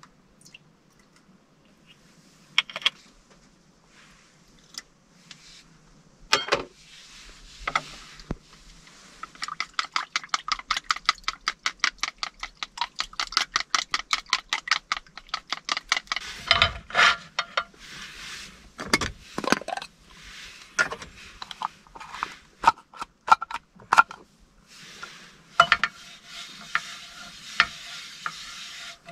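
Long chopsticks beating raw eggs in a plastic bowl: a run of rapid, even clicks, about five a second, lasting several seconds, then slower, irregular taps and knocks of chopsticks and utensils.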